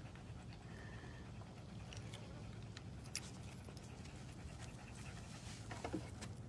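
A German Shepherd panting, with scattered faint clicks, a sharp click about three seconds in and a knock near the end.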